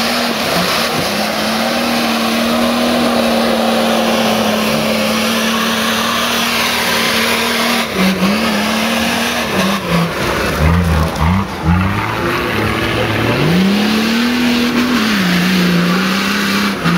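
Nissan Patrol 4x4's engine held at high revs under load at one steady pitch while it churns through mud. About halfway through the revs drop and jump up and down as the throttle comes off and back on, then climb again and hold near the end.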